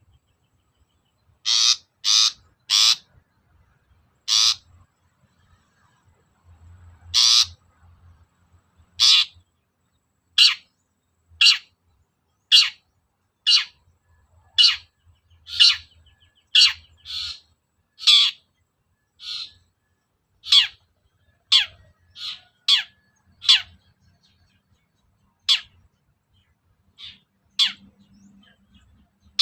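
Long-tailed shrike (cendet) giving short, harsh calls, roughly one a second, some in quick pairs or a run of three. It is a lure recording meant to provoke a caged cendet into answering.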